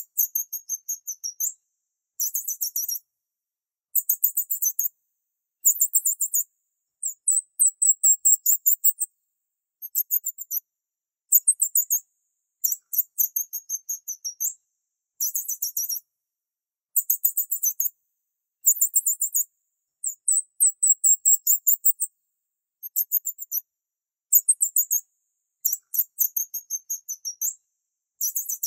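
Very high-pitched, rapid chirping in short bursts of several quick pulses each, repeating about every one to two seconds with brief silent gaps. There is no low cooing.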